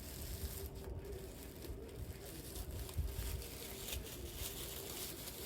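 Faint handling noise: soft rustling and light bumps of packaging and small charms being moved about, one bump about three seconds in.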